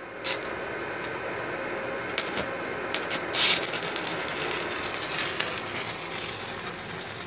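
Steady hum of the MultiPro MIG-MMA/TIG 160A-SC inverter welder's cooling fan, with scattered clicks and rattles as the amperage knob is turned and the cables are handled, including a short burst of clicks about three and a half seconds in.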